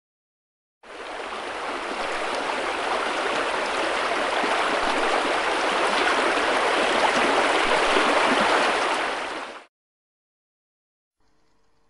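Rushing water of a small waterfall spilling over a stone weir: a steady splashing hiss that fades in about a second in and stops near the end.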